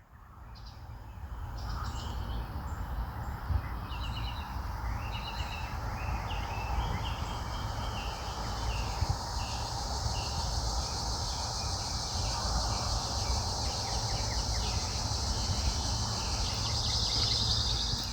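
Outdoor ambience: small birds chirping over a steady low rumble and hiss, fading in at the start and fading out at the end.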